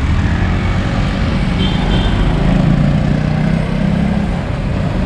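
Wind rushing over the microphone of a camera on a moving bicycle, with a motorcycle engine running close by, loudest through the middle as the motorcycle passes.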